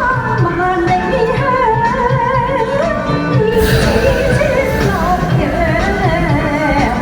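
Pop-style song playing: a melody sung with vibrato over a steady backing beat.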